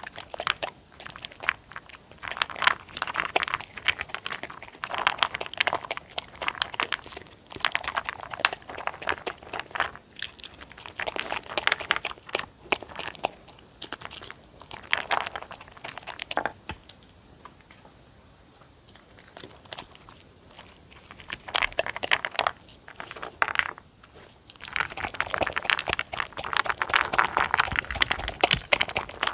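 A dog crunching and chewing salmon-and-turkey jerky treats in bursts of rapid crunches, with a quieter pause of a few seconds past the middle.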